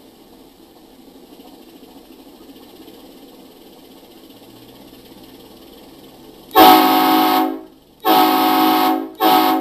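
Diesel locomotive sound from a Tsunami DCC sound decoder: the prime mover idling faintly, then the decoder's air horn sounding two long blasts and one short one, starting about two-thirds of the way in.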